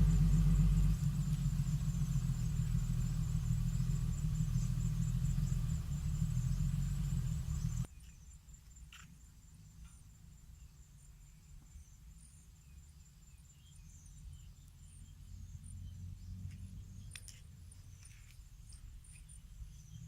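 Heavy construction-machine diesel engine running loud and low, cutting off abruptly about eight seconds in. A faint, distant engine rumble with a few scattered clicks remains.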